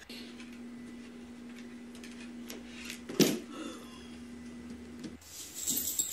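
A single sharp knock about three seconds in, a hard guitar case lid being shut, over a steady low hum that stops about five seconds in.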